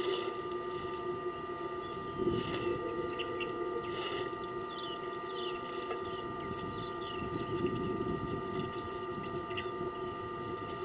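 A steady hum of several held tones, with small birds chirping in short, repeated calls over it.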